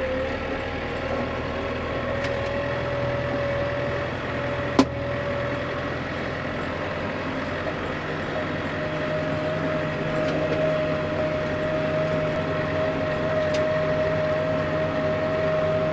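Skid steer engine running steadily under a steady whine, heard from inside the cab. The pitch steps up slightly a little past halfway, and a single sharp click comes about five seconds in.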